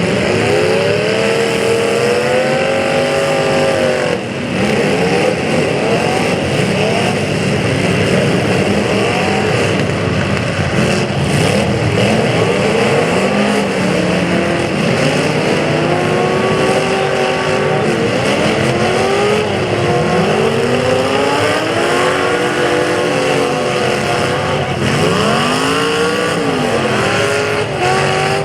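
Several demolition derby car engines revving hard and dropping back over and over, their pitches rising and falling across one another.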